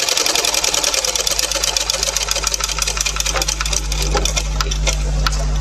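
Electric sewing machine stitching at speed, a fast even run of needle strokes, slowing to scattered strokes near the end while the motor's low hum carries on.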